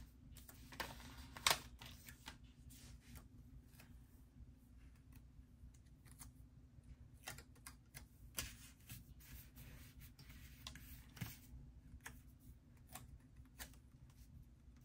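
Faint, scattered light clicks and rustles of paper handling: stickers being peeled from a sticker sheet and pressed onto a paper planner page.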